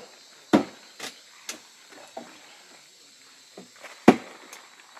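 Sharp, irregular knocks of a tool striking wooden poles, about five strikes with the loudest near the end, as a pole frame is being built. A faint steady insect drone runs underneath.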